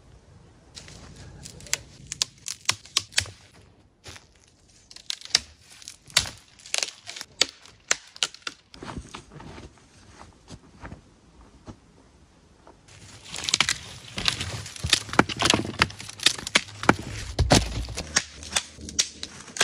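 Dry dead branches and twigs being snapped and broken off by hand for firewood: runs of sharp cracks and crackles in several bursts, busiest near the end.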